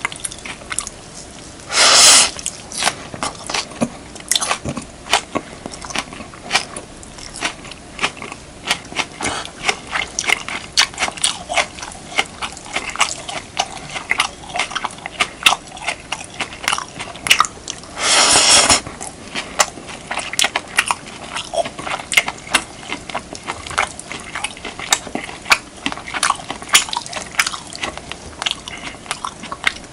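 Close-miked eating of beef, kimchi and rice: a steady run of quick wet chewing and mouth clicks. A louder, longer sound of about half a second comes about two seconds in and again around eighteen seconds in.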